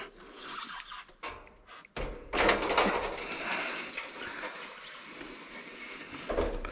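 Section of double-wall stainless chimney pipe being slid down through an attic insulation shield by hand: metal scraping and knocking, with a sharp knock about two seconds in followed by a scraping rush that fades.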